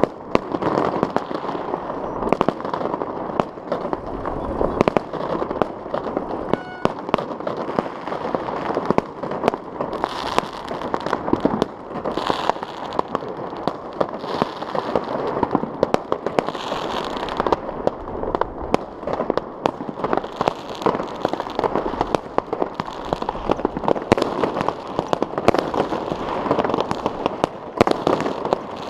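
Many New Year fireworks salvos going off across a city at once: a dense, unbroken run of cracks and bangs with no pause.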